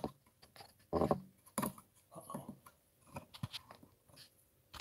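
Handling noise from a phone on a tripod rig as it is moved and adjusted: scattered short knocks, clicks and rubs.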